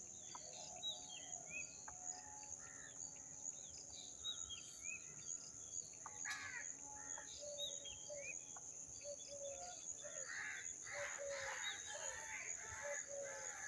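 Birds calling outdoors: many short, high chirps from small birds throughout, joined about eight seconds in by a lower call repeated every half second or so, over a steady high-pitched drone.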